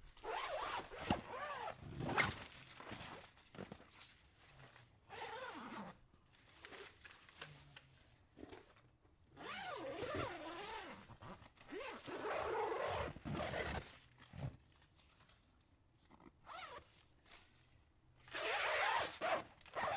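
A tent zipper being pulled open and shut in about five separate runs, each a second or two long, its pitch rising and falling with the speed of the pull.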